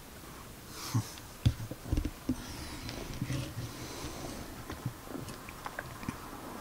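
A domestic cat purring right at the microphone, with a cluster of knocks and rustles from about one to two and a half seconds in as the camera brushes against its fur.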